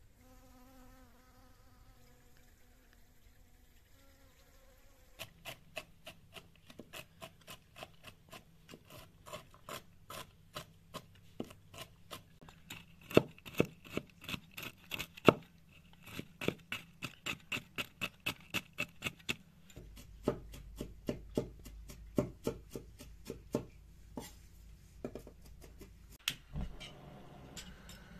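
A honeybee buzzing at a flower for the first few seconds. Then a knife chopping walnuts on a wooden cutting board in quick, even strokes, about three a second.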